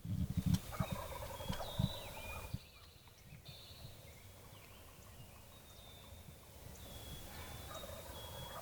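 Wild turkey toms gobbling: one rapid, rattling gobble about half a second in, lasting some two seconds, and a fainter one near the end, with thin high calls of other birds between. A few low thumps come at the very start.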